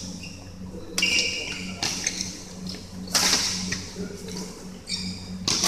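Badminton rally: rackets striking the shuttlecock with sharp cracks about a second apart, four times, over a steady low hum.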